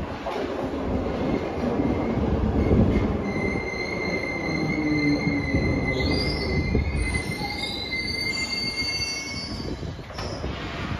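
Glasgow Subway train running into the station and braking, its wheels squealing in a high, steady tone over a low rumble, with higher squeals gliding up and down before it comes to a stop near the end.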